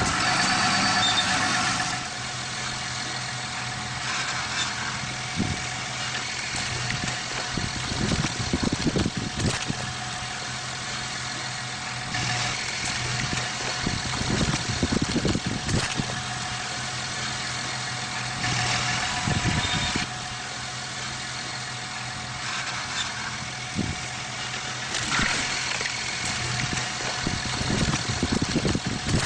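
Farm tractor engine running steadily while driving a big square baler, with spells of knocking and rattling from the baler's machinery every few seconds.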